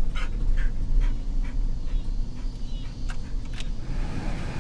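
Van's road noise heard from inside the cabin: a steady low rumble, with a scatter of short soft clicks or puffs on top about every half second.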